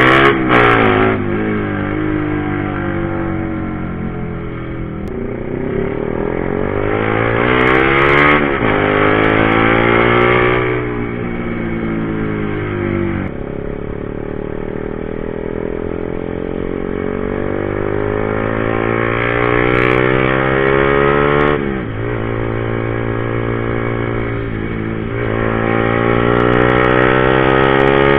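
Honda CBR150R's single-cylinder four-stroke engine pulling under way. Its pitch climbs as it revs and then drops or dips sharply at gear changes and throttle changes, several times over.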